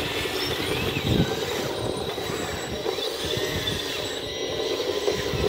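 Working RC construction models, a Metalhobi Hidromek H4 500 hydraulic excavator and a Carson Liebherr LR 634 dozer: a steady mechanical whine from their motors and hydraulic pump, with higher tones gliding up and down as the machines move.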